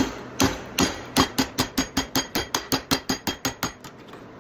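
Hand hammer striking a 3/8-inch round steel bar held in a small bending jig, folding the bar back on itself; each blow rings briefly. A few spaced blows are followed by a fast, even run of about five a second that stops shortly before the end.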